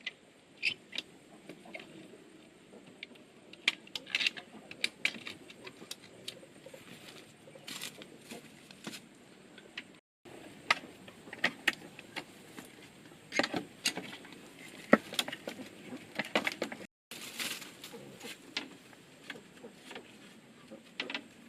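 Irregular sharp snaps and clicks over a low rustle, with the sound dropping out completely for a moment twice.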